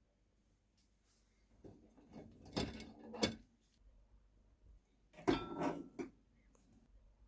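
Dishwasher rack rattling and sliding in its tub, in two short bouts about three seconds apart.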